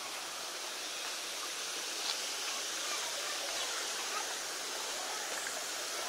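Steady rush of running water from a rocky forest stream and a waterfall.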